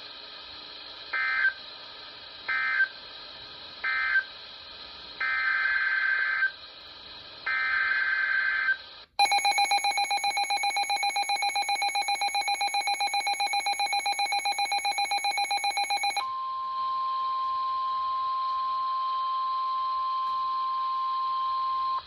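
Weather radio alert tones: three short chirps of SAME digital data (end-of-message), then two longer data bursts of the next alert's header. Then a loud, rapidly pulsing electronic alert tone for about seven seconds, which gives way to the steady 1050 Hz NOAA Weather Radio warning alarm tone.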